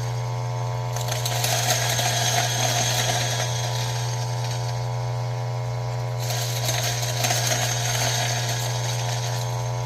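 Ceado E6P espresso grinder's motor running steadily while coffee beans are fed in slowly a few at a time and crackle as they are ground. The crackling picks up about a second in and eases near the end.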